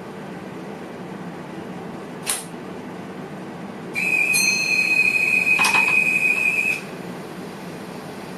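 A loud, steady high-pitched electronic warning tone in the cab of a VIRM electric train, lasting about three seconds, with a sharp click partway through. Under it runs the steady running noise of the train, and a brief high hiss or click comes about two seconds earlier.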